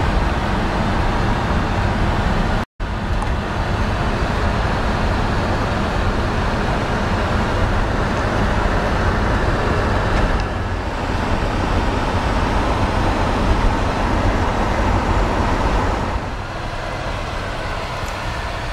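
1950 DeSoto's flathead straight-six running while the car drives along, with steady road and wind noise in the cabin. The sound cuts out completely for an instant a little under three seconds in. It is quieter for the last few seconds.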